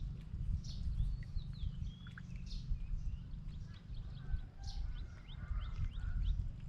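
Birds chirping and calling, many short calls that slide up and down in pitch, over a steady low rumble.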